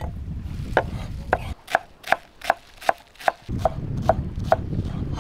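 A knife chopping on a cutting board: about ten even strokes at roughly two and a half a second, over low wind rumble on the microphone that drops away briefly in the middle.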